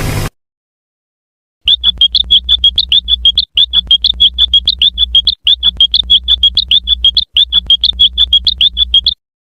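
Cartoon sound effect of rapid high-pitched chirps, about seven a second, in four runs split by brief breaks, over a low hum. Heavily amplified and loud.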